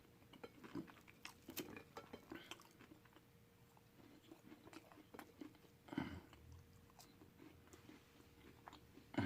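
Faint chewing of food, with many small, irregular mouth clicks and a slightly louder bite or mouth noise about six seconds in.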